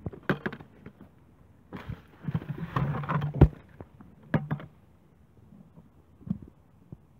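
Horse eating hard feed from a rubber tyre feeder: scattered knocks and rustles of its muzzle in the feed and against the rubber, busiest between about two and three and a half seconds in, with one sharp knock near the end of that stretch.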